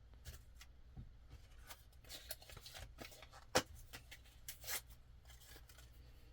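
Light scraping and rubbing strokes with small clicks as the parts of a disassembled folding knife are handled and picked clean of grime, with one sharp click about three and a half seconds in.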